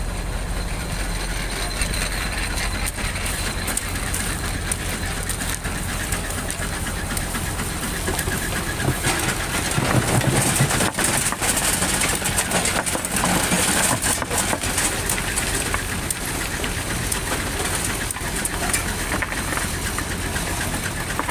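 Engine of a vintage road-construction machine running with a dense, rapid clatter. It grows louder about nine seconds in and eases off again after about fifteen seconds.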